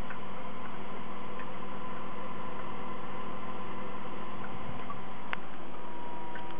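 Steady electrical hum and hiss from a running home-built terrarium's equipment, whose air and water are cooled by a refrigerator compressor and which is kept misty, with faint scattered ticks and a sharper click a little after five seconds in.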